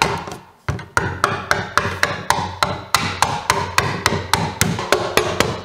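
Rubber mallet striking quickly and evenly, about three or four blows a second, hammering small screws like nails through a metal fan grate into plywood.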